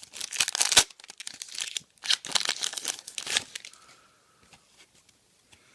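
Trading card pack wrapper crinkling and tearing as cards are handled, in two spells with a sharp click about a second in, then almost quiet.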